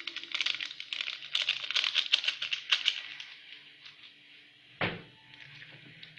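Rapid clicking and scraping of a utensil against a bowl as curd filling is worked, then quieter, with a single sharp knock about five seconds in.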